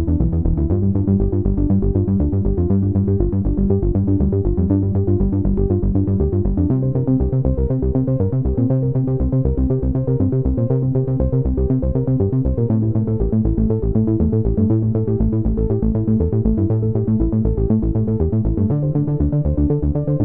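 Electronic background music with a steady beat and a low bass line that changes note about every six seconds.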